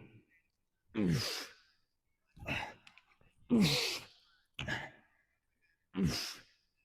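A man breathing heavily out through his voice, five or six breaths about a second apart, each one a short sigh that falls in pitch.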